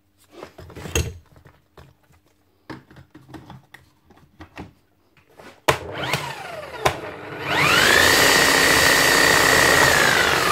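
Bosch GSH 11 E electric demolition hammer handled with a few knocks and clicks, then switched on: its motor spins up to a steady high whine for a couple of seconds and winds down with falling pitch near the end. The machine is no longer hammering, the sign of a worn hammer mechanism that needs a service kit.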